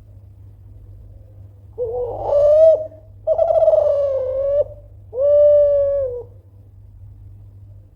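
Kelantan-strain spotted dove (tekukur) giving its cooing call: three low notes about a second apart, the middle one the longest, starting about two seconds in.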